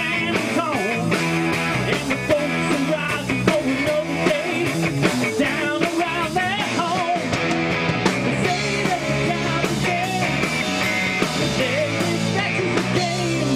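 Live rock band playing a full-band passage on electric guitars, bass, keyboards and drums, at a steady level throughout.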